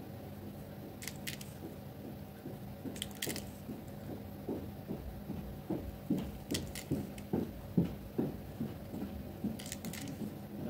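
Metal nail pusher scooping holographic nail glitter from a small jar and sprinkling it onto a gel-coated nail tip, heard as a run of soft crunching and scraping sounds with gloved-hand handling noise, thickest and loudest in the middle and later part. A few sharp clicks stand out, about a second in, about three seconds in, and near the end.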